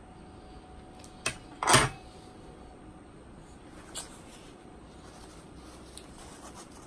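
Dishes and utensils being handled on a table: a few separate short knocks and clatters, the loudest just under two seconds in, the rest lighter.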